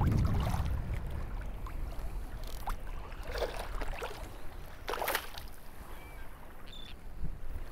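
Shallow bay water lapping and splashing as a released speckled trout swims off, with a few short splashes, the sharpest about five seconds in.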